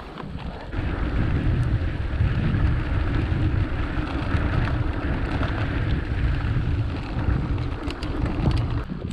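Wind rushing and rumbling over the microphone while moving, a steady noisy rush that grows louder about a second in.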